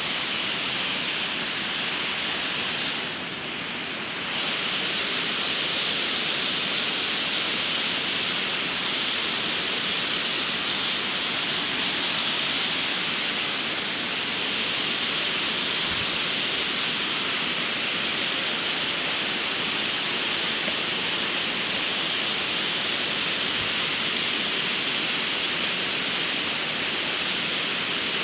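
Stream water rushing over rocks and a small stone weir, a steady rush with a strong high hiss that dips briefly about three seconds in.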